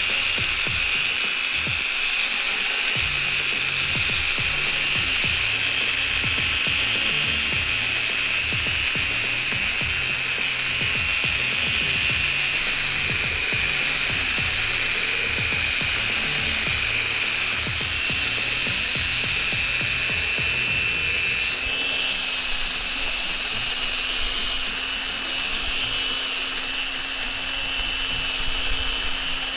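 Electric drill spinning a sanding pad with 800-grit paper, wet-sanding a yellowed plastic headlight lens: a steady high whine over rough rubbing, the tone shifting slightly about twenty-two seconds in.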